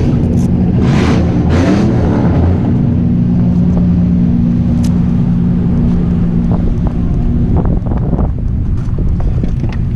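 Drift car's engine running steadily, with a brief rev up and back down about two seconds in. The sound turns rougher with scattered knocks from about seven and a half seconds in.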